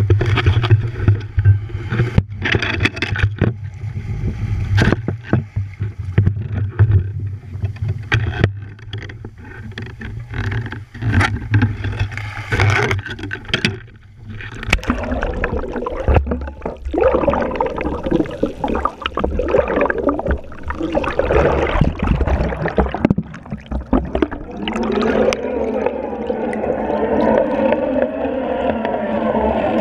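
Action camera in a waterproof housing knocked and handled on a fishing boat's deck, many sharp knocks over a low steady hum. About halfway through it goes into the sea with a rush of water, and near the end, underwater, a steady wavering hum sets in.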